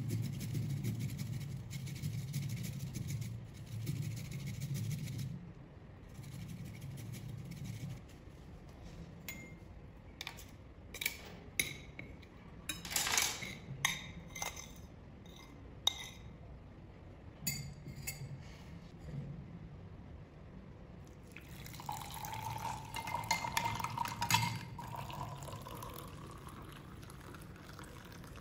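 Fresh turmeric root grated on a small metal hand grater, in rhythmic scraping strokes. Then a metal spoon clinks sharply against a plate and glass, many quick strikes. Near the end, liquid is poured into a glass, its tone rising slightly as the glass fills.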